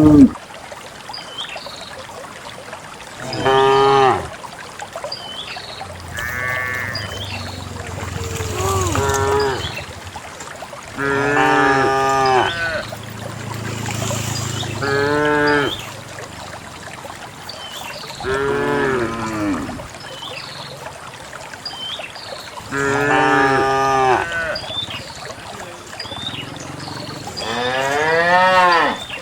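Cows mooing again and again, about eight separate calls a few seconds apart. Some calls are short and some are drawn out, with pitch that bends as each call ends.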